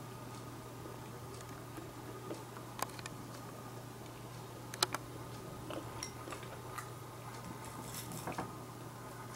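Quiet room tone with a steady low hum, broken by a few faint sharp clicks and taps; the loudest is a quick double click about five seconds in.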